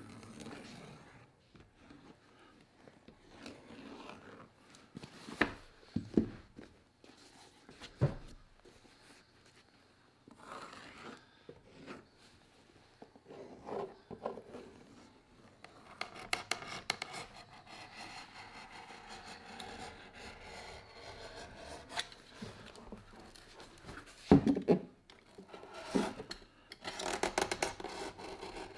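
Hand tools working on a boot: scattered knocks and rubbing at first, then, from a little past halfway, a steady run of quick rasping strokes with a few sharp knocks, the loudest near the end.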